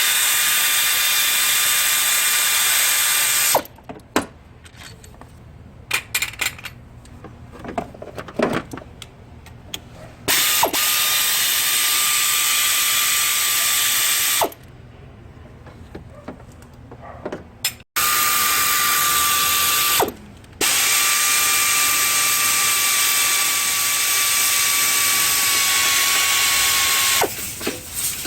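A power tool running in stretches of a few seconds, a loud hiss with a thin steady whine, stopping and starting four times; in the gaps, scattered clicks and knocks of tool work.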